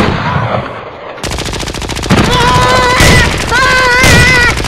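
Rapid, continuous rattle of toy-blaster fire in a Nerf battle, as from an automatic Nerf blaster. Over it, a high, wavering wail sounds twice.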